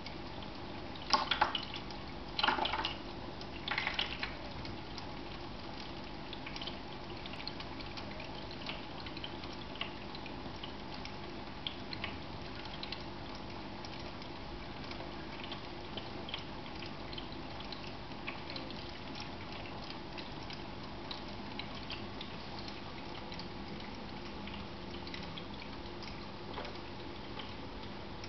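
Electric pet drinking fountain with water trickling steadily from its spout and small drips, with three short splashes about one to four seconds in as a kitten paws at the water.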